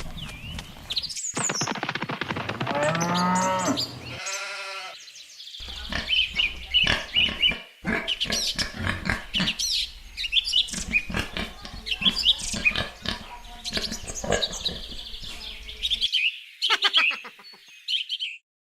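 Farm animal calls: a few drawn-out livestock calls in the first few seconds, then many birds chirping and twittering in quick, high notes.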